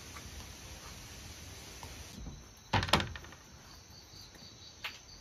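Faint steady chirring of night insects, with a loud brief clatter of a few quick knocks about three seconds in and a single click near the end.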